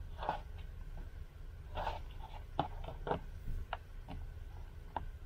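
Nylon paracord being handled and pulled through a Turk's head knot on a short PVC pipe: soft rustles and scrapes with a few light ticks at irregular times, over a low steady hum.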